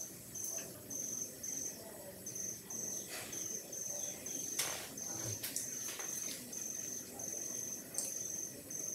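Cricket chirping: a high, steady trill broken into pulses a little under two a second, with a few faint clicks and knocks over it.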